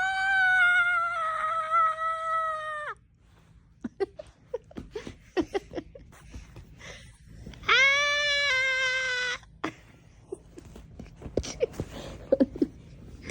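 Golden retriever puppy giving two long, drawn-out whining howls, the first about three seconds long and the second shorter, a little past the middle. Between them come scattered small clicks and taps.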